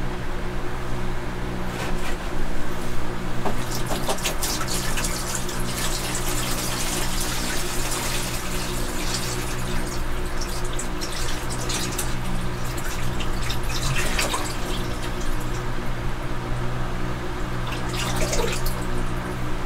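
Water poured from a plastic gallon jug onto the loose substrate of a snake enclosure, splashing and trickling steadily, to moisten the bedding and raise the humidity. A steady low hum runs underneath.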